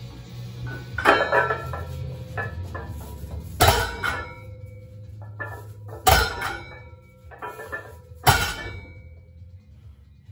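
Barbell loaded with iron plates set down on the floor at the bottom of each deadlift rep: four loud metallic clanks about two seconds apart, with the plates rattling and clinking in between.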